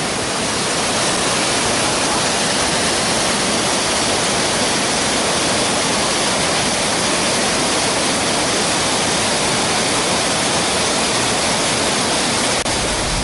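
Waterfall's falling water rushing, a loud, steady, unbroken wash of noise.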